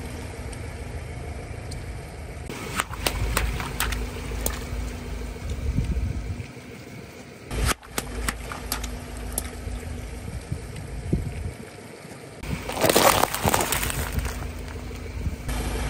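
Car tyre rolling over water gel beads and balloons on wet asphalt: scattered pops and clicks over a low engine rumble, then a loud wet crunching burst about thirteen seconds in as the tyre flattens bags of water beads.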